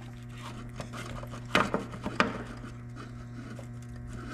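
Pliers working a spring hose clamp on a mower's fuel line: a few sharp metallic clicks and knocks in quick succession about a second and a half in, over a steady low hum.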